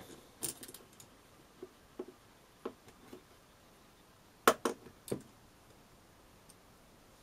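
Small metal screws and a metal focuser bracket being handled and fitted by hand: a few faint clicks, then three sharper clicks about four and a half to five seconds in.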